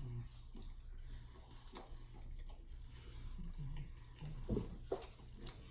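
Faint eating sounds: chewing with scattered small clicks and taps, and a couple of brief low murmurs from the eaters.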